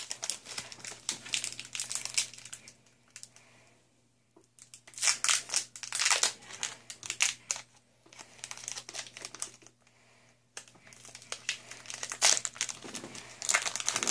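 Foil Pokémon booster pack wrapper crinkling in irregular bursts as it is handled and pulled open by hand, with two short pauses.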